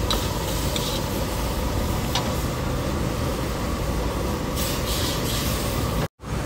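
Stir-frying in a metal wok: a steady rushing noise throughout, with a metal spatula clinking and scraping against the wok a few times, most clearly about two seconds in and again near five seconds. The sound breaks off for a moment near the end.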